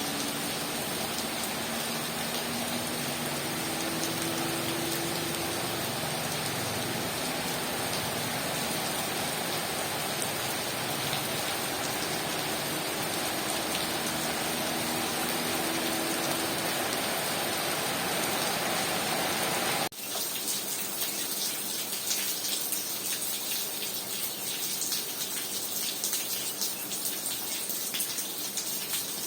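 Heavy rain falling as a steady, dense hiss. About two-thirds of the way through the sound changes abruptly to a brighter, crackling rain full of individual drop hits on a surface.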